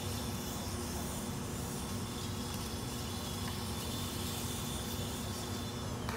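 A micromouse robot speeding through the maze on its high-speed run, its motors giving a faint high whine that shifts slightly in pitch as it accelerates and brakes.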